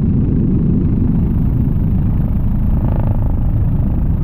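Helicopter rotor and engine noise heard on board: a loud, steady low rumble.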